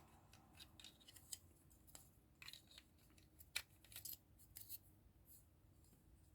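Faint, scattered small clicks and taps of small plastic model-kit parts being handled and fitted together, about a dozen light ticks spread over a few seconds.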